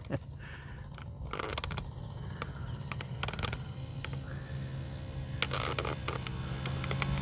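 A small moped engine running steadily, getting louder near the end. Scattered clicks and scrapes come from a handheld camera being jostled.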